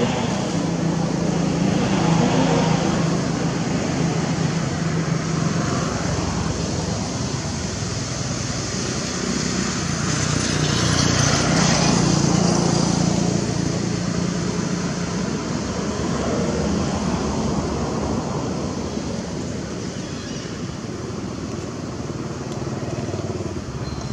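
Motor vehicle engines running nearby, a steady low hum that swells about two seconds in and again around halfway through, then eases off near the end.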